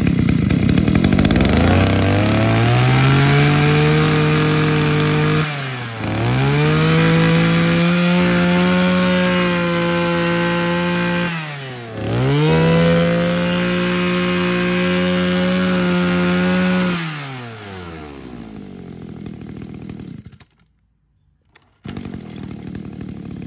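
Echo 26cc two-stroke brush cutter engine, freshly started on the pull cord after priming and choking, revved to full throttle three times with brief drops to idle between. About 17 s in it falls back to idle and stops, and a quieter steady running sound returns near the end.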